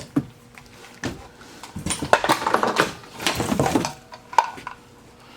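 Vintage sewing machine foot pedals and their cords and plugs being handled and rummaged from a box. A few sharp knocks come near the start, then a couple of seconds of clattering and rustling, then one more knock.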